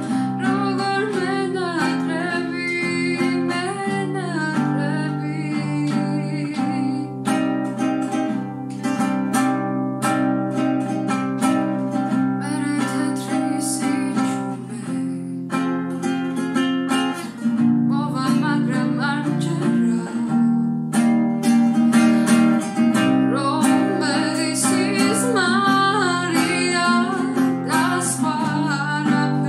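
A woman singing a Georgian song while strumming chords on a classical guitar. The strumming thickens into dense, even strokes in places.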